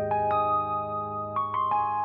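Background music: a slow keyboard melody, a few notes struck one after another over held chords.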